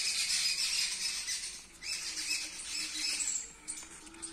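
A busy chorus of small birds chirping and twittering, which thins out near the end.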